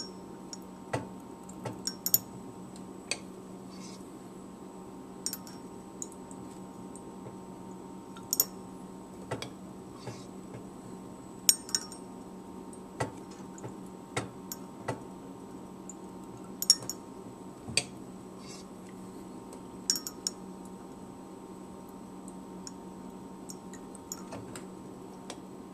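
Light glass clinks and clicks, irregular, about one every second or two, from a glass volumetric flask being topped up dropwise with an eyedropper. A steady low hum runs underneath.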